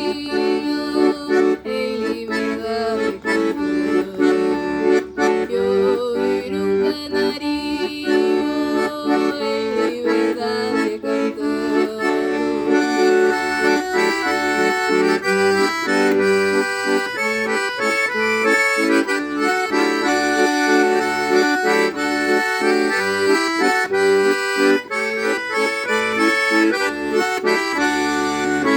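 Instrumental background music: held chords under a quick, busy melody.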